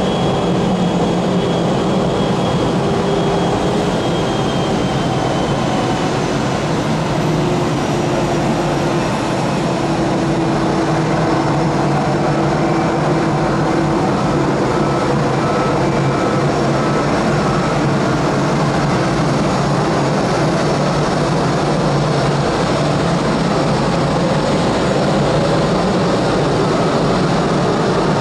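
Airbus A320-214's CFM56 turbofan engines running at taxi power as the airliner taxis: a steady rumble with faint whining tones that drift slightly in pitch.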